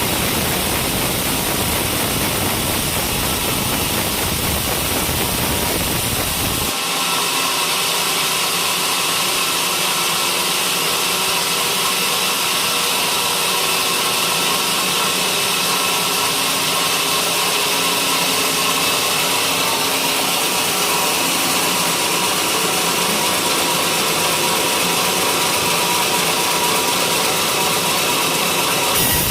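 Homemade sawmill running, its engine-driven blade sawing coconut-palm timber in a steady mechanical din. About seven seconds in the sound changes abruptly: the low rumble drops away and a higher whine with steady tones takes over.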